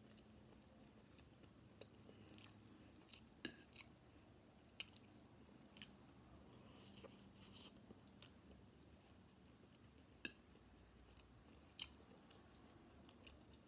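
Faint chewing and mouth sounds of someone eating chicken chow mein noodles, with several sharp clicks, the loudest about three and a half seconds in.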